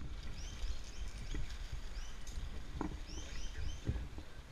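Small birds chirping over and over in short, high calls. Underneath are low rumbling and a few faint clicks from the climber's rope and gear being handled close to the microphone.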